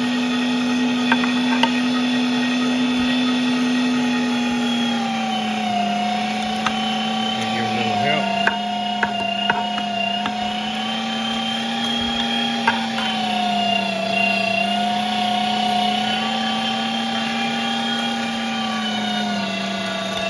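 LEM Mighty Bite electric meat grinder running steadily while grinding deer meat. The motor hum drops in pitch about five seconds in and dips and recovers several times as meat is fed in and loads the motor, with a few light clicks.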